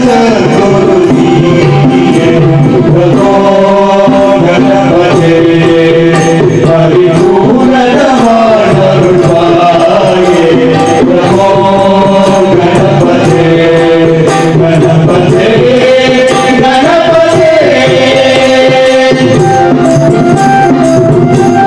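Men singing a Tamil devotional bhajan to Ganapathi into microphones, accompanied by an electronic keyboard and small hand cymbals keeping time.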